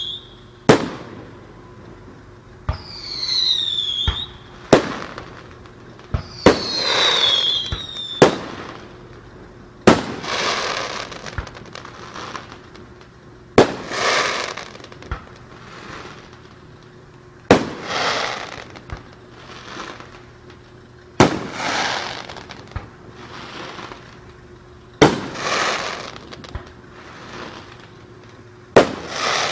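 Aerial fireworks shells bursting with sharp bangs every two to four seconds, each followed by a crackling fizz from the stars. In the first few seconds, whistling shells give falling whistles just before they burst.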